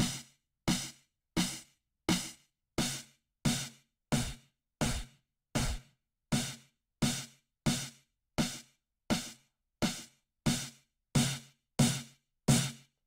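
Synthesized snare drum hits, each a layered mix of library samples decoded by a variational autoencoder, played one after another about three times every two seconds. Each hit is short and sharp, and its timbre shifts from hit to hit as the latent vector is moved along the principal components, with a deeper body on a few hits near the middle.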